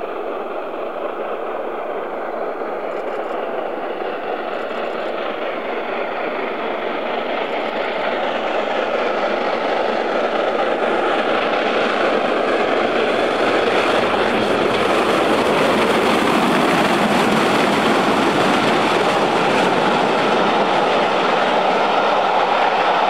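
Steam locomotive hauling a train of coaches at speed, approaching and passing close by. It grows steadily louder over the first half and stays loud as the coaches run past.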